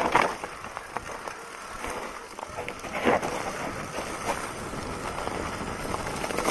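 Mountain bike rolling down a rocky forest trail: tyres crunching over dirt, stones and dry leaves, with the bike rattling and a few sharper knocks as it hits rocks, one about three seconds in.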